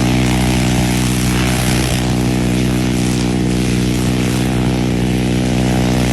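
Propeller aircraft engine running at a steady pitch, loud and unchanging.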